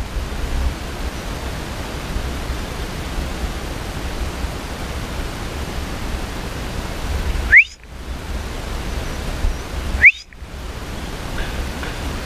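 Wind on the microphone: a steady rushing noise with a low rumble. About seven and a half seconds in, and again about two and a half seconds later, comes a short, loud whistle rising in pitch.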